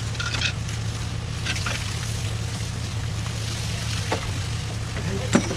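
A plaster pump's engine running with a steady low drone as it feeds wet pebble finish through the hose. Scattered scrapes and clicks of trowels working the mix sound over it, with a sharp knock near the end.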